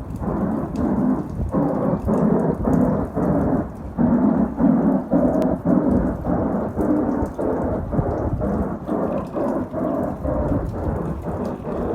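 Unidentified low rumbling drone, pulsing regularly about two to three times a second.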